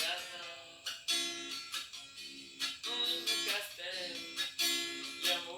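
Acoustic guitar strumming chords in a song, with a strum stroke roughly every half second to second.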